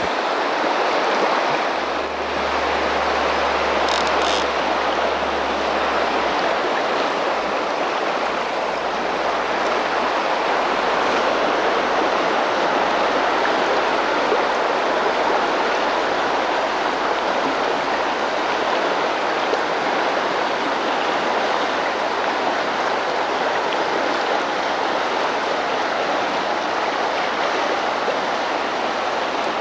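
A broad river flowing fast over a shallow riffle: a steady, even rush of water around a wading angler.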